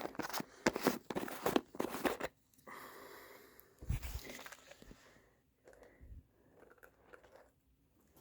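Chinchilla crunching and gnawing on a molar chew treat: a quick run of crisp crunches for the first couple of seconds, then quieter, scattered gnawing with a few soft low thumps.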